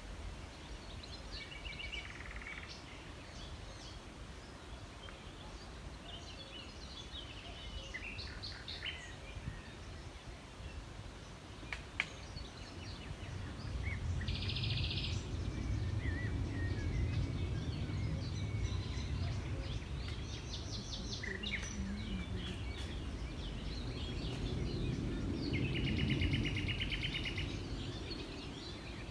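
Songbirds singing and calling in spring: scattered short chirps and trills, with two longer buzzy trills, one about halfway in and one near the end. A low rumble swells from about halfway in.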